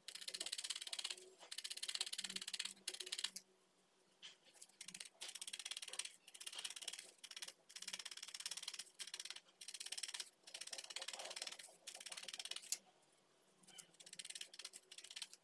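Felting needle stabbing rapidly through wool into a foam pad: fast crunchy pokes in bursts of a second or two, with short pauses as the piece is turned.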